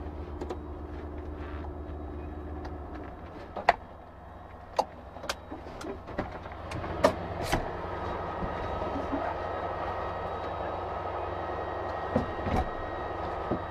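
Fire-engine motors and pumps running steadily at a fire scene, with a string of sharp cracks or knocks through the middle. From about eight seconds a steadier rushing sound with a faint whine joins in.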